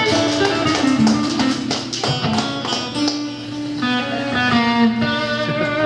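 Guitar playing a melody in quick plucked notes, live.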